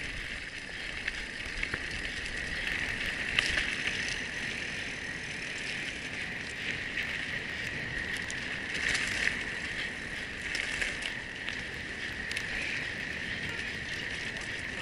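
Mountain bike being ridden along a dirt trail: tyre noise and the bike rattling, with scattered short knocks over bumps, under a steady high-pitched drone.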